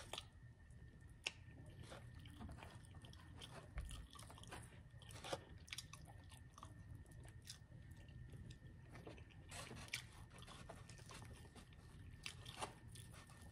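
Faint close-up eating sounds: a person biting and chewing crunchy food, with scattered sharp crunches among quieter chewing.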